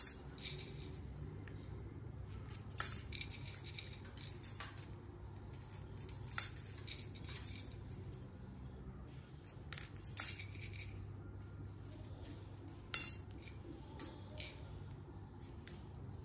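Steel bicycle spokes clinking against each other and against the hub flange as they are threaded one by one through the flange holes while lacing a wheel: about eight short, sharp metallic jingles a second or several seconds apart.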